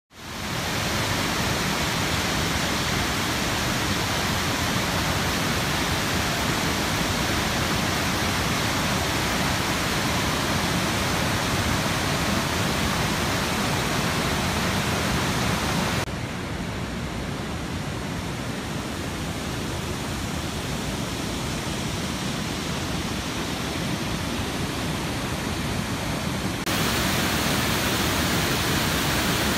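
Rain-swollen river rushing over boulders and pouring over a rock ledge in white water: a steady, dense rush of water. It fades in at the start, drops quieter and duller about 16 seconds in, and comes back louder about 27 seconds in.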